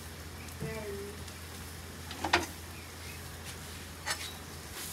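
Soya granule sabzi frying in a steel pan on a gas burner: a steady sizzle, with two sharp metal clicks of a spoon against the pan about two and four seconds in.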